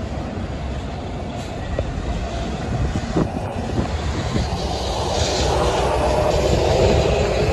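Mack roll-off truck's diesel engine and tyres as it pulls through a turn close by, growing louder as it nears, with a few knocks and rattles from the truck and its roll-off container.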